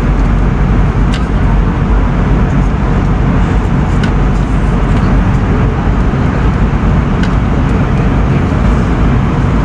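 Steady cabin noise inside an airliner in flight: the even rush of the engines and the airflow. A few faint clicks sound over it.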